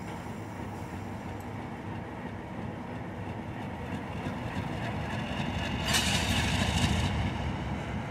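MLW RS-18u diesel locomotive rumbling slowly past, its engine growing louder from about four seconds in. About six seconds in there is a burst of high-pitched hissing noise lasting about a second.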